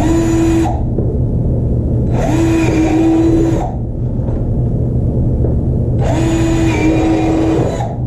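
Cordless drill running in three short bursts, each a second or so long, as it bores holes through the corner of a plastic tub. A steady low hum runs underneath.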